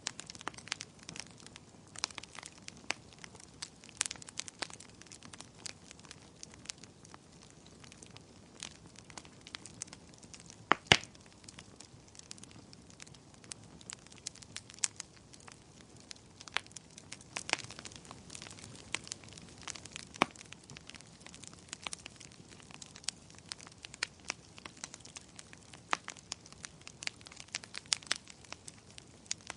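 Wood fire crackling in a fireplace: irregular sharp pops and snaps over a faint steady hiss, with one louder pop about eleven seconds in.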